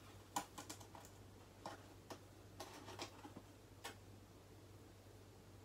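Faint, irregular light clicks of a spoon tapping and scraping a small metal mesh flour sifter as rice flour is sifted into a bowl, about nine clicks in the first four seconds, then almost nothing.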